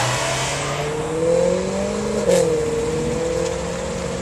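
Car engine revving up, its note climbing, then a sharp crack about two seconds in after which the note dips and holds steadier.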